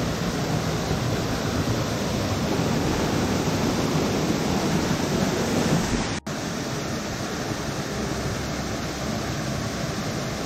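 Small waterfall pouring over rock into a pool: a steady rushing splash of water. It cuts out for an instant about six seconds in, then carries on slightly quieter.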